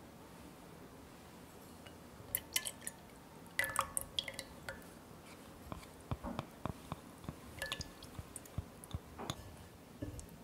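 Liquid poured from a small glass cup into an enamel saucepan of water, dripping and splashing lightly. A few light clinks of glass come before it, and the pour's drips start about six seconds in.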